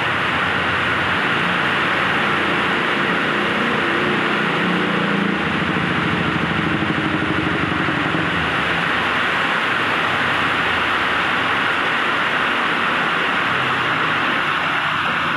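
Heavy rain pouring steadily on a road and puddles, with cars and motor scooters driving past through the wet. A passing engine is loudest from about two to eight seconds in.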